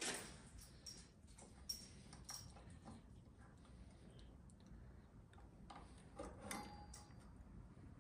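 Faint, scattered small clicks as metal crimp pins are pushed into a plastic six-pin power connector housing by hand.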